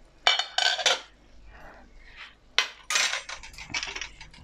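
Kitchenware clinking and clattering: a glass pot lid lifted off a steaming pot and set down on the worktop. The sharp clinks come in two groups, one just after the start and another a little past the middle, with a few lighter ticks after.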